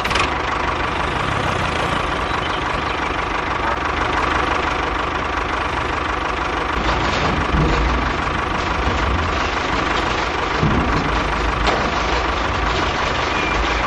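A motor running steadily, with a constant whine over a dense, even noise.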